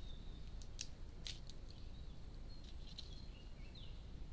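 Sykes's monkey biting into food held in its hands: a few sharp crunching clicks in the first second and a half and one more near three seconds, over a steady low hiss. Faint short bird chirps come near the end.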